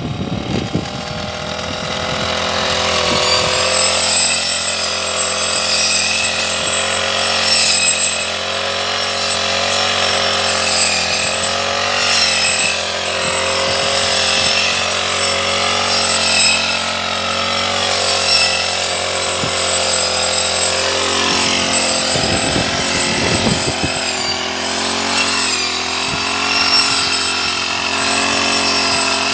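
Brush cutter with a toothed metal saw blade running at high revs while cutting tall grass, a steady engine whine whose pitch wavers slightly.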